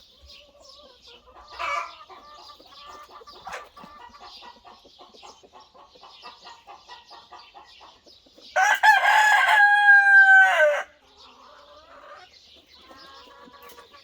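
Chickens clucking steadily, with a rooster crowing once, a single loud call of about two seconds just past the middle.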